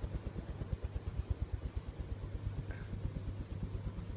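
Hunter Pacific Aurora 2 ceiling fan running with only two blades: a steady low motor hum under a rapid, even pulsing of moving air.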